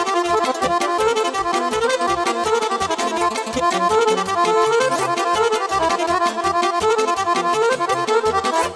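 Live instrumental Romanian folk dance music from a band: an accordion leads a quick melody over a steady bass beat, with no singing.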